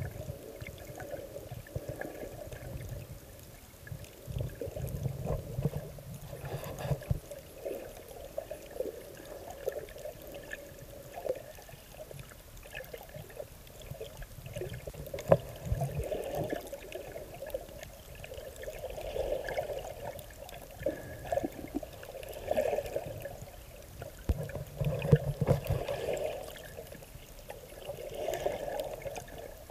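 Muffled water sloshing and gurgling picked up by a camera underwater, swelling and fading every few seconds, with scattered clicks and taps.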